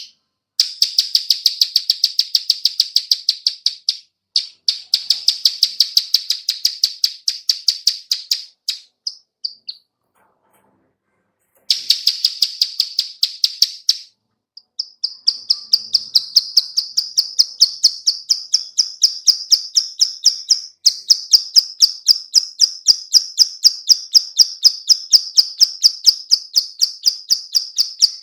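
Female plain prinia (ciblek sawah) giving its 'klik-klik' call: long runs of sharp, evenly spaced clicks, about five or six a second, with a pause of about two seconds a third of the way in.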